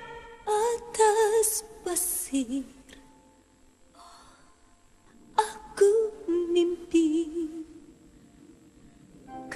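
Soft female singing in short held phrases over quiet orchestral backing, with a hushed pause in the middle.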